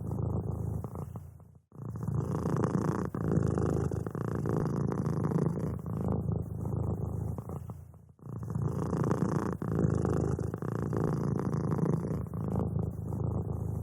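Cat purring steadily and closely, a low rough pulsing that breaks off briefly twice, about six seconds apart.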